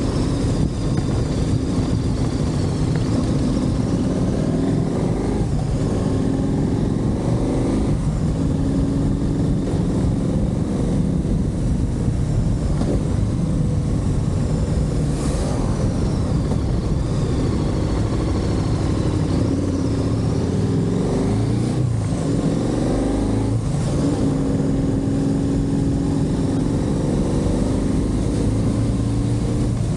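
Motorcycle engine running under way, heard from on board; its note drops and climbs again several times, as at gear changes.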